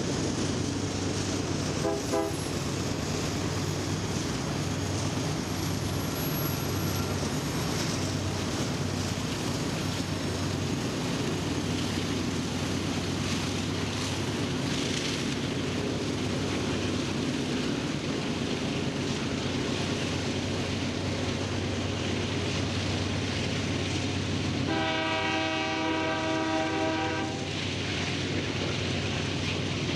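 Union Pacific diesel freight train running past with a steady engine drone and rolling rumble. A brief horn note sounds about two seconds in, and near the end comes a long air-horn blast of roughly two and a half seconds.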